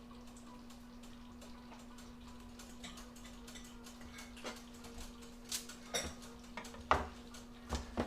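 Irregular light clicks and knocks of kitchen items being handled, growing busier in the second half, over a steady low electrical hum.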